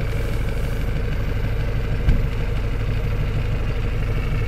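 Cummins diesel engine of a GAZ Valdai truck idling with a steady, evenly pulsing low rumble, heard from inside the cab. A single short knock about two seconds in.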